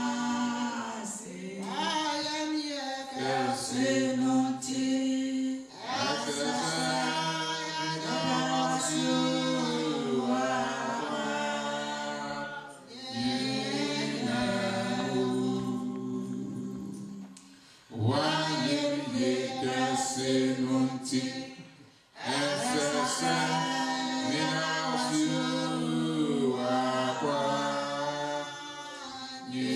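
Voices singing a hymn unaccompanied, in phrases with long held notes. The singing breaks briefly about six seconds in, grows softer between about thirteen and eighteen seconds, and pauses again about twenty-two seconds in.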